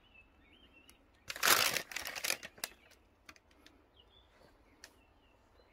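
A thin plastic bag crinkling and rustling once for about a second, with a few light clicks of handling around it.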